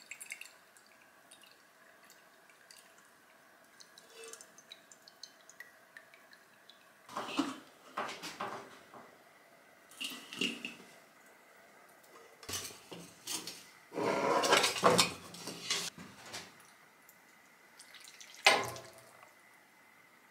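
Oil dripping from a metal frying pan into a glass jar, then the pan handled and wiped with a series of clatters and scrapes, the longest and loudest a few seconds before the end, and one sharp clank near the end.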